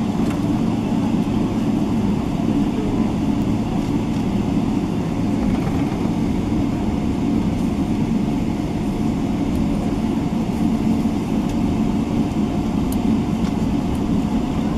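Steady low rumble inside the cabin of a Boeing 777-300ER taxiing, its GE90 engines at idle, with a faint steady hum above it.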